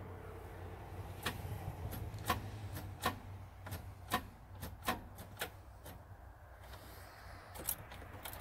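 Starter solenoid of a big-block dually pickup clicking as the key is turned, about a dozen sharp clicks at uneven intervals with no cranking, over a low steady hum. It is a no-start that the owner puts down to the batteries or a failed starter.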